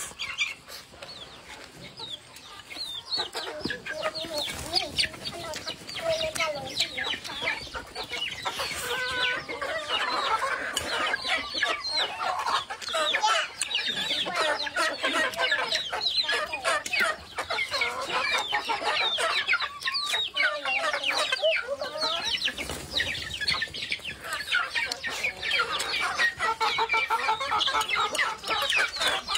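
Domestic chickens clucking, a dense, continuous stream of short calls that grows louder about three seconds in.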